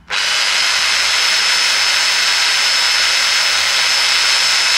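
Electric drill starting abruptly and running steadily at full speed, spinning an engine valve clamped by its stem in the chuck to check whether the valve is bent; a steady high whine rides over the motor's hiss.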